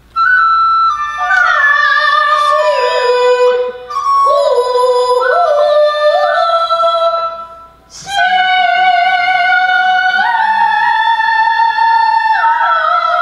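Kunqu opera singing: a voice holding long, drawn-out notes that step and slide between pitches, with flute accompaniment. The music breaks off briefly just before eight seconds in, then resumes.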